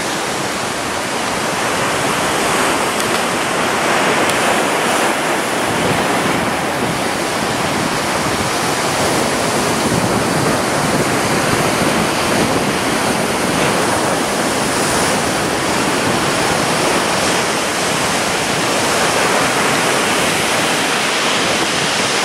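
Ocean surf breaking and washing on the beach: a steady rush that swells and eases every several seconds as the waves come in.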